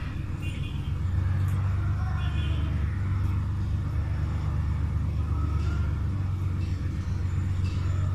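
Steady low rumble of a motor vehicle running, with faint higher sounds now and then above it.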